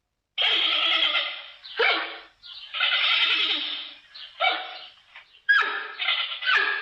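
A panda calling: a run of about five harsh calls, a longer one of over a second near the middle and shorter ones around it, starting after a brief silent gap.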